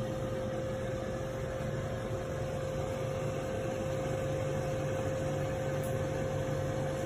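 Simplus KQZG018 6-litre visual air fryer running while cooking: a steady fan whir with a constant hum tone, unchanging.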